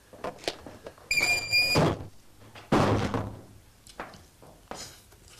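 A wooden plank door swinging: its hinge squeals for well under a second, then the door bangs shut about a second later.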